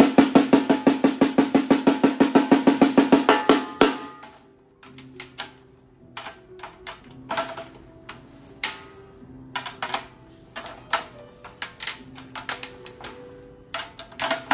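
3D-printed snare drum tuned very high, close to a marching snare, played with sticks as a fast, even roll with a high ring for about four seconds. It then gives light, scattered taps on the head between turns of the drum key as it is tightened further.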